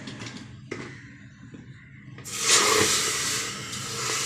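Water tap turned on, its water suddenly rushing out with a loud hiss about two seconds in, over a steady low motor hum.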